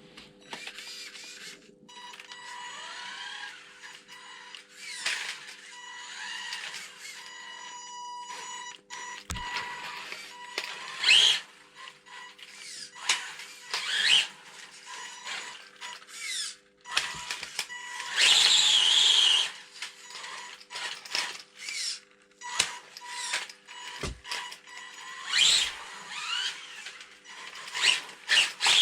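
Clear polycarbonate RC car body being cut and handled: irregular scraping, snipping and crackling of the thin plastic, over a steady low hum.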